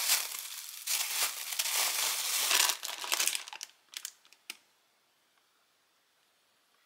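Thin plastic bag crinkling loudly as it is handled with a loaf of bread inside, tailing off into a few separate sharp crackles about four seconds in.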